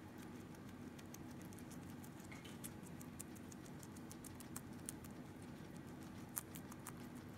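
Guinea pig nibbling shredded romaine lettuce: faint, quick, irregular crunching clicks, with one sharper click near the end.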